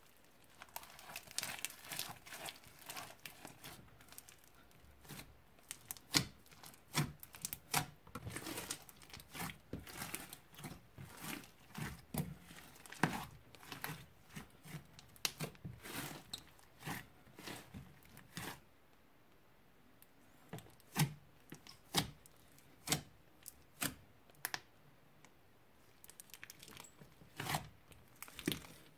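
Old slime being kneaded, stretched and mixed by hand, giving irregular sticky crackles and pops. There is a short pause about two-thirds of the way through.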